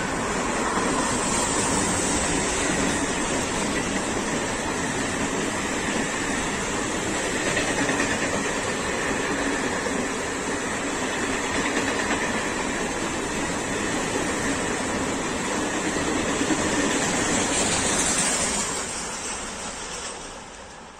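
A container freight train's flat wagons rolling past at speed: a steady rush of wheel-on-rail noise that fades away over the last few seconds as the end of the train pulls off.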